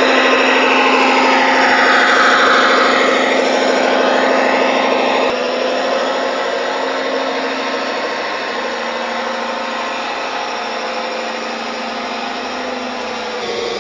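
Radio-controlled scale model Komatsu HD405 dump truck driving, its motor and drivetrain running with a steady, mechanical hum. The sound drops abruptly in level about five seconds in.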